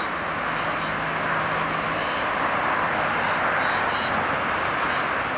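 Jet aircraft engines running, a steady rushing noise with a faint low hum under it for the first two seconds.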